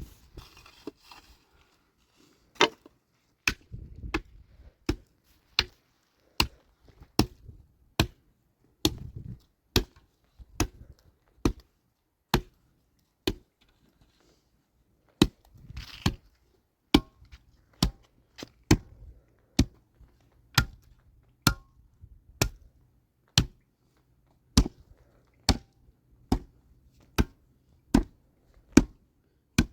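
Repeated sharp blows, a little over one a second. They pause briefly around the middle, then resume at the same steady pace.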